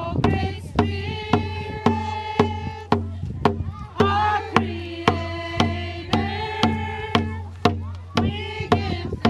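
A group of women singing a hand drum song together in held, sliding notes, over steady beats on round hide hand drums, about two beats a second.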